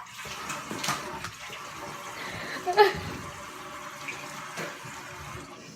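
Steady rush of running water, as from a tap, with a short vocal sound about three seconds in. It cuts off abruptly near the end.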